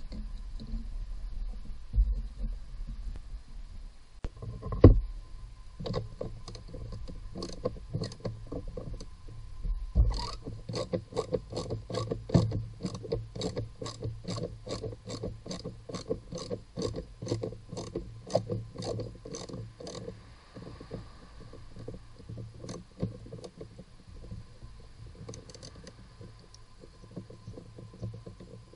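Hand socket ratchet clicking rapidly as it turns a bolt, about three clicks a second for some ten seconds in the middle, with scattered clicks before and after. Two sharp knocks come in the first few seconds.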